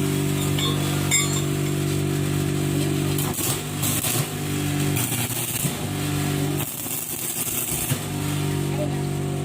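Steady machine hum made of several even low tones. It wavers and breaks up from about three seconds in until near the end, with a hiss over it.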